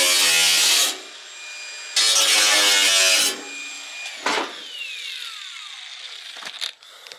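Power tool cutting steel exhaust pipe in two loud bursts, the first ending about a second in and the second from about two seconds in; after each burst the tool winds down with a falling whine. A single knock follows about four seconds in.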